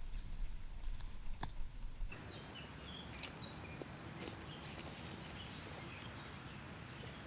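A low rumble for about two seconds, then, after an abrupt change, birds chirping with short, high calls over a quiet outdoor background.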